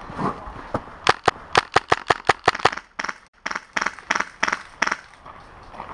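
Airsoft rifle shots fired in quick semi-automatic succession: about sixteen sharp cracks at roughly five a second, in two strings with a short pause between.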